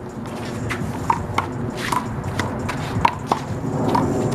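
A big blue rubber handball being slapped by hands and smacking off the wall during a fast rally. The sharp smacks come irregularly, about two a second.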